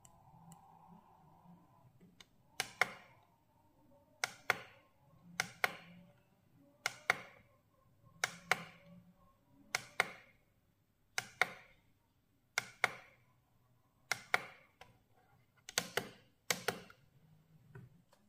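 Sharp clicks, mostly in quick pairs, repeating about once every second and a half.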